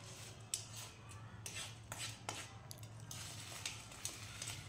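Metal spoon scraping and clinking against a plate while mixing French fries, in scattered irregular taps and scrapes.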